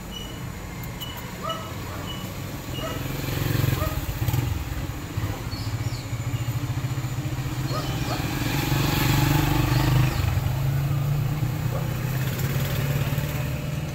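A motor vehicle's engine running close by, growing louder to a peak about two-thirds of the way through, then easing off a little. A row of short high chirps sounds near the start.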